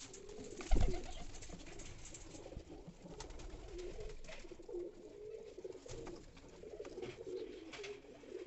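Domestic pigeons cooing over and over. A loud thump comes about a second in, followed by scattered light clicks and rustles as a hand works in a nest box.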